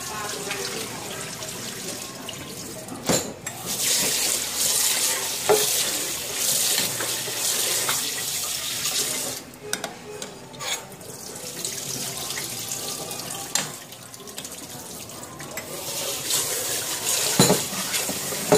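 Pot of pork and bitter gourd soup boiling with a steady watery bubbling, while a metal ladle skims the foam and clinks against the stainless steel pot several times.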